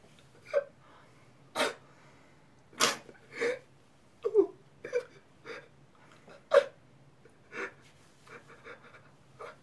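A person crying: a string of short, sharp sobbing breaths with brief whimpering catches, about one a second, growing fainter near the end.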